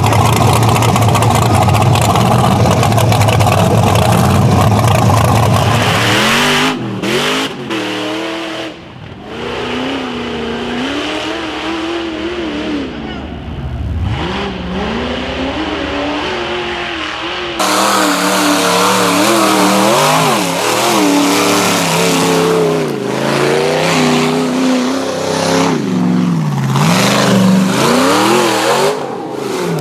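Off-road rock bouncer buggy engine: it runs loud and steady for about six seconds, then is revved up and down over and over, the throttle worked hard in repeated rises and falls in pitch.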